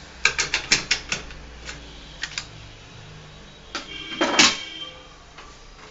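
A quick run of sharp clicks, about seven in a second, then a few scattered clicks and a louder rattling clatter about four seconds in.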